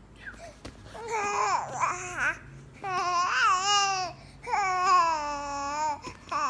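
Baby babbling and cooing in three drawn-out, high-pitched vocalizations whose pitch rises and falls, with a short fourth one near the end.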